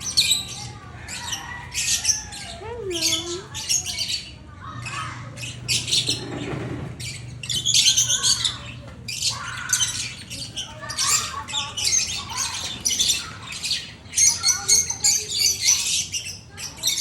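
Lovebirds chirping and squawking: a rapid, dense run of short, shrill, high-pitched calls that keeps going with only brief gaps.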